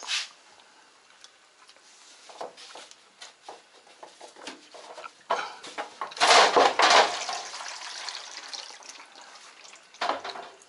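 Parts and tools clattering and knocking while a washing machine is dismantled, with a louder rattling scrape about six seconds in and a short clatter near the end.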